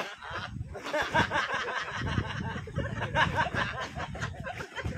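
Several people laughing and shouting at once, a loud, dense jumble of voices with no clear words.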